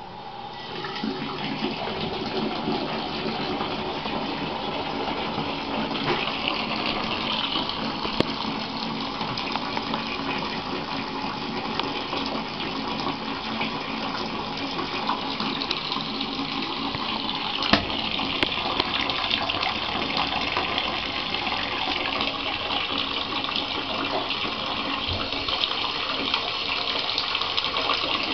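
Bathtub tap turned on about a second in, then water running steadily into the plugged tub.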